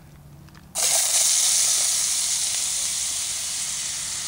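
Rehydrated hash browns hitting hot bacon grease in a metal pan: a loud frying sizzle starts suddenly about a second in and carries on steadily, easing slightly.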